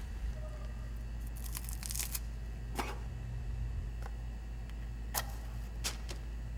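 A wooden match being struck again and again: a quick cluster of scratchy strokes, then single strikes spaced out, with two more near the end as it catches.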